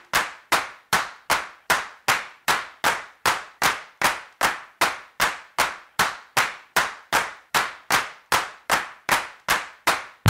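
Sharp percussive hits repeating evenly at about two a second, each dying away quickly, from a sparse percussion break in the background music.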